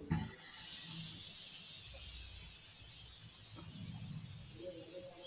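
A steady, high-pitched hiss that starts suddenly about half a second in and slowly fades.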